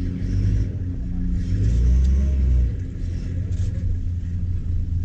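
Safari vehicle's engine idling, a low rumble that swells for about a second roughly two seconds in.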